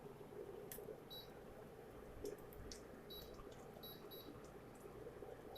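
Faint short electronic beeps, a handful spread over a few seconds, from the keypad of a digital cooker as its temperature and timer are set. A low hum sits underneath.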